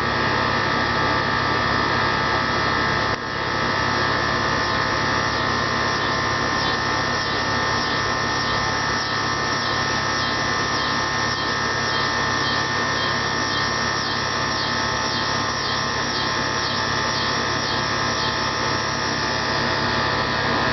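A steady buzzing drone made of several held tones. Faint regular pulsing rides over it from about six seconds in until near the end, and there is a brief drop with a click about three seconds in.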